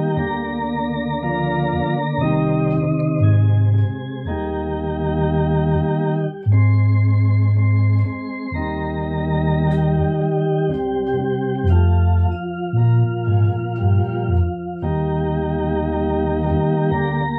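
Tokai electronic home organ playing a slow hymn in sustained chords with a slight vibrato, over low bass notes that change every second or two.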